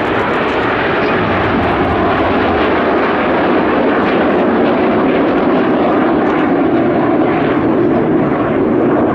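Steady jet noise from a formation of BAe Hawk T.1 jet trainers, their Rolls-Royce Adour turbofans heard together as one continuous rushing sound that swells slightly as they turn.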